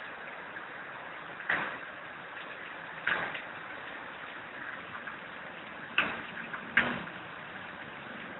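Four sharp knocks or clanks, about 1.5, 3 and 6 seconds in and again just under a second later, each ringing briefly, over a steady background hiss.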